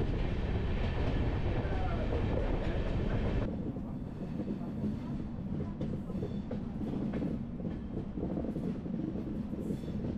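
Passenger train running along the track: a steady low rumble with faint clicks of the wheels over rail joints. About three and a half seconds in the sound turns quieter and duller.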